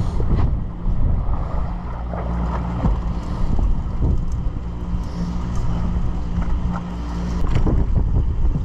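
Steady low drone of a fishing party boat's machinery running, with wind and water noise over it.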